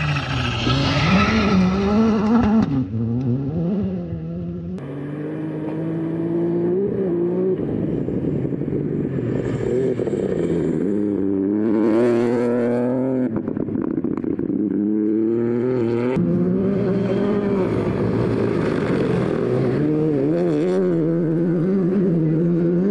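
Rally cars driven hard on a stage, engines revving up and dropping again and again through gear changes and corners, in several short clips one after another.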